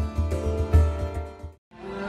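Music with a heavy pulsing bass beat under sustained notes. It cuts off suddenly about one and a half seconds in, and after a moment's silence a different passage fades in.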